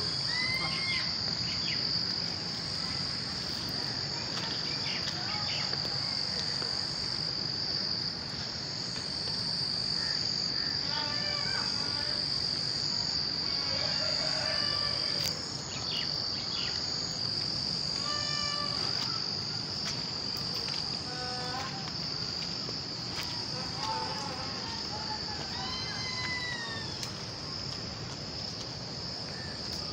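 A steady high-pitched drone of insects, with short calls breaking in over it now and then.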